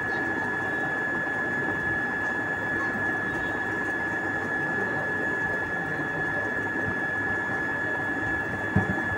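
Steady electrical or motor hum with a constant high-pitched whine over a low whirring noise, unchanging throughout, and one brief thump near the end.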